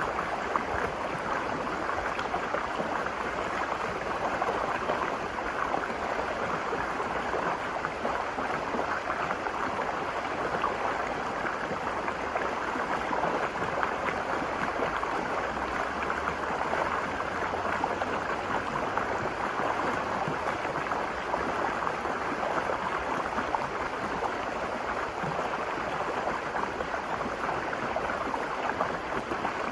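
The Virgin River running over rocks: a steady rush of flowing water, even throughout.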